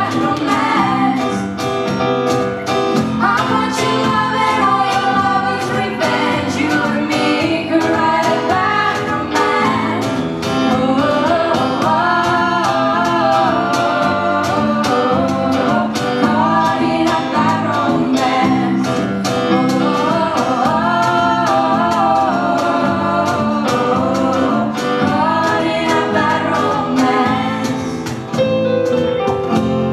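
Live band performing a pop song: female vocalists singing into microphones over electric guitar, bass guitar and keyboards.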